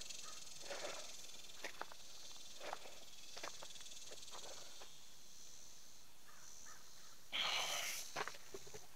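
Footsteps moving through grass with scattered light rustles, and a louder brushing rustle about seven seconds in, over a steady high insect chorus.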